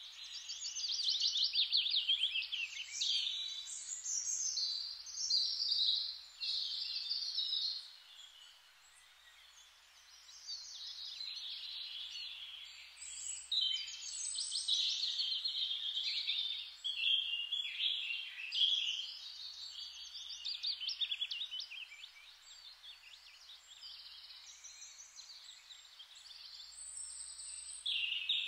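Risotto rice, radicchio and sausage sizzling in a frying pan as they are stirred, a crackly hiss that swells and fades with a quieter spell about a third of the way in.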